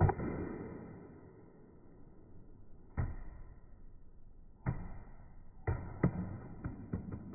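An iPhone 15 Pro in a UAG Monarch Kevlar rugged case dropped onto a hard stone floor: a sharp clatter at the start, further hits about three, five and six seconds in, then a quick run of small clicks as it bounces and settles.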